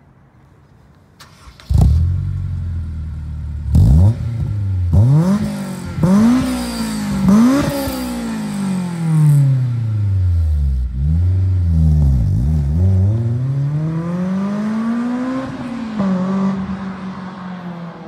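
Honda S2000 four-cylinder engine through a GReddy Supreme SP stainless dual-muffler cat-back exhaust. It starts up about two seconds in and idles briefly, then is blipped in several quick sharp revs. Longer, slower revs follow, and near the end it settles into a steadier note that fades away.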